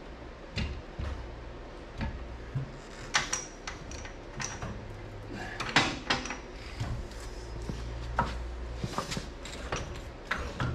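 Metal parts knocking and clanking as a truck's rear axle and frame are handled by hand: scattered knocks, a few with a short metallic ring, the loudest about six seconds in, over a low steady hum.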